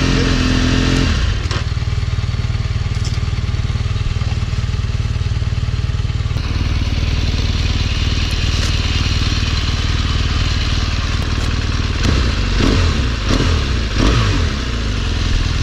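BMW R1200 GS flat-twin motorcycle engine idling, with a few short throttle blips near the end as throttle response is tested after its loose throttle body connection was reconnected.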